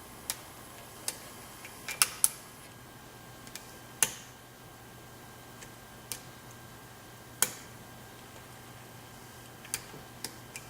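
Sharp, irregular metallic clicks, about nine of them, as a lock pick and tension wrench work the pin stack of a high-security euro profile cylinder with spool driver pins.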